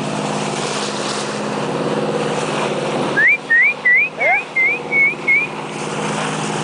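Boat engine running steadily. A little after three seconds in the engine sound drops out and a quick run of about seven short rising whistles follows, around three a second, before the engine returns.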